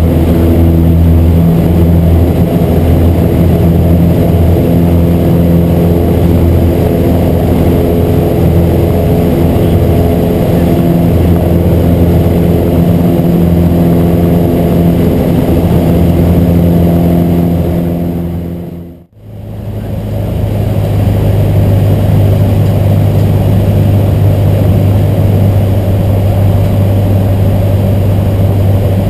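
Piper Warrior II's four-cylinder Lycoming engine and propeller at full takeoff power, heard from inside the cabin as a loud, steady drone through the takeoff roll and climb. About two-thirds of the way through it briefly fades almost to silence and comes back with a changed tone.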